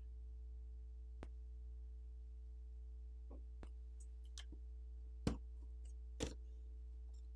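Faint, sharp clicks and taps, about half a dozen scattered through a few seconds, the two loudest about five and six seconds in, over a steady low electrical hum: small tools and phone parts being handled during a smartphone teardown.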